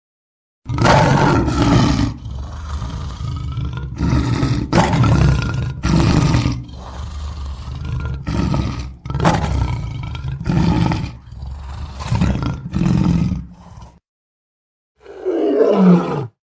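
Lion roaring: a series of about a dozen deep, loud roars in quick succession, then after a brief pause one more roar that falls in pitch near the end.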